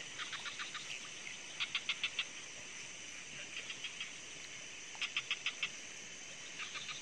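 Night-time animal chorus: a caller repeats short trills of five to seven quick pulses about every second and a half, over a steady high hum.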